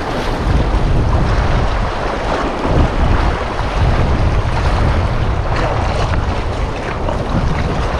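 Wind buffeting the microphone in irregular low gusts over the steady wash of surf on the shore.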